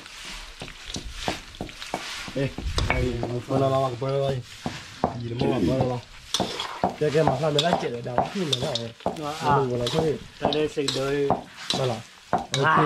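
Metal spatula stirring and scraping meat in a steel wok over a wood fire, with a frying sizzle and repeated short scrapes. A wavering pitched sound of unclear source comes and goes throughout, louder in the second half.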